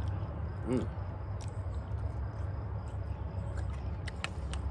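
A man eating corned beef hash with a spoon: a short closed-mouth "mm" hum about three-quarters of a second in, then chewing and lip-smacking clicks, several in a quick cluster near the end, over a steady low rumble.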